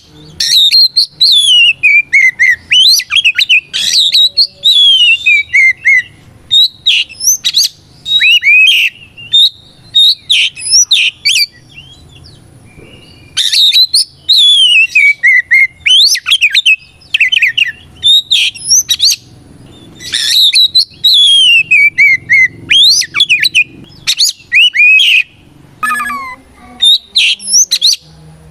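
Oriental magpie-robin (kacer) singing loudly in long, rapid bouts of chirps and clear whistles, many notes sliding downward. The song breaks off briefly about halfway through and again near the end before resuming.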